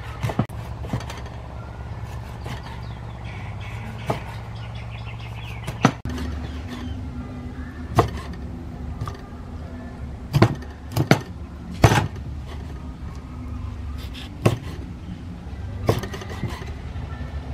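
A cleaver chopping an eel into chunks on a wooden chopping block: about a dozen sharp chops at irregular intervals, several in quick succession. A steady low hum runs underneath.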